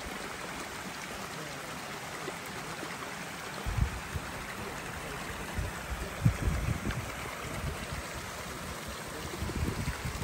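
Creek water running steadily. From about four seconds in, irregular low thuds hit the microphone.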